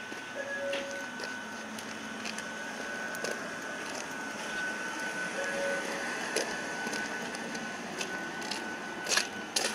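Steady electrical whine in the cab of an Ohmi Railway electric train. A short low beep sounds about every five seconds, with scattered clicks and knocks and a louder pair of clicks near the end.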